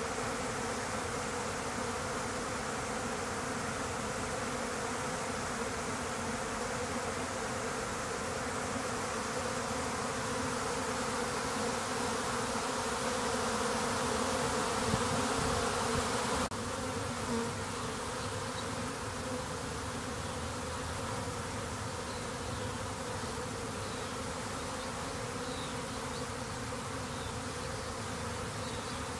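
A swarm of honeybees flying all around, a dense, steady buzzing hum of many wingbeats. The hum drops slightly and suddenly about sixteen seconds in.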